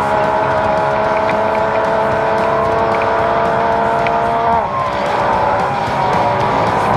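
Naturally aspirated side-by-side UTV engine held steady at high revs. About four and a half seconds in, the revs drop sharply as the throttle is lifted, then climb again in uneven surges.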